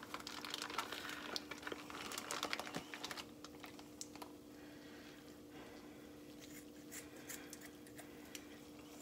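Kitchen scissors snipping raw bacon and the plastic bacon packaging crinkling, a run of small clicks and rustles that is busiest in the first three seconds and sparser after. A faint steady hum runs underneath.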